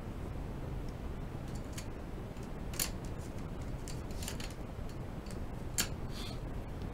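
Steady low background hum with a few short, sharp clicks and ticks scattered through it, the clearest about three seconds in and near the end.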